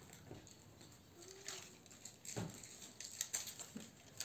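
Faint handling of tarot or oracle cards: scattered soft taps and rustles as cards are shuffled and drawn, becoming busier in the last second or two.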